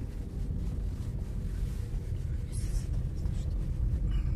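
Car cabin noise while driving: the steady low rumble of the engine and tyres on the road.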